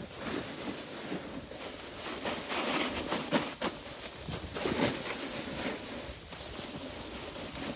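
Snowboard edges scraping and hissing over groomed snow through carved turns, the noise swelling with each turn.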